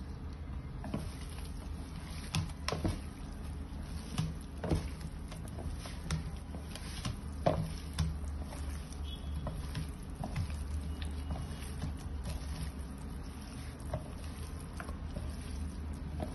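Hands mixing marinated raw meat pieces in a plastic tub: irregular wet squelches and light knocks against the container, over a steady low hum.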